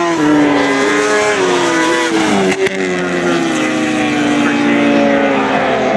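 Superbike engines running on the circuit, their pitch falling slowly. There is a short break about two and a half seconds in, then a second long falling note.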